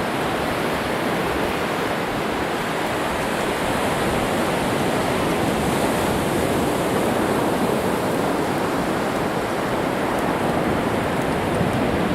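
Ocean surf washing steadily onto a sandy beach, a continuous rushing hiss without distinct breaks.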